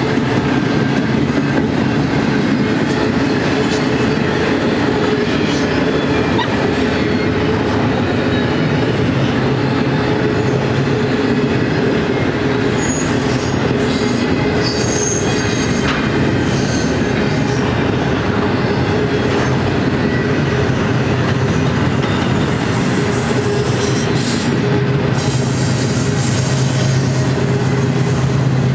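Double-stack intermodal freight train's loaded well cars rolling past: a loud, steady rumble of steel wheels on rail, with a few brief high wheel squeals a little before halfway.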